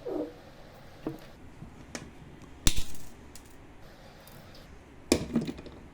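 Cutters snipping the eight Cat6a wire ends off straight: one sharp snap about two and a half seconds in, with lighter clicks of tool and cable handling around it and another quick cluster of clicks near the end.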